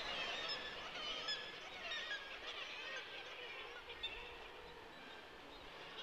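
Several birds calling at once: many short high chirps overlapping, with a lower wavering call about two and a half seconds in.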